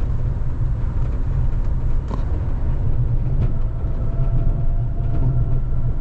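Kanazawa Seaside Line rubber-tyred automated train running, heard inside the car: a steady low rumble, with a faint high whine coming in about halfway through and fading near the end.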